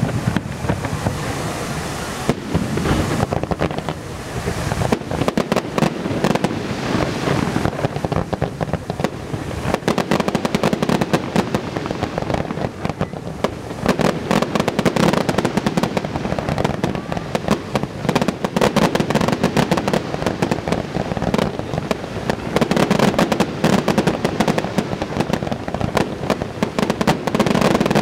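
Aerial fireworks shells bursting in a rapid, continuous barrage of bangs and crackling, one burst running into the next without a pause.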